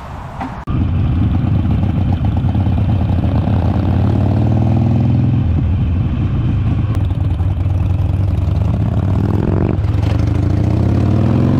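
Motorcycle engine running loud and steady, cutting in abruptly under a second in and revved up twice in the second half.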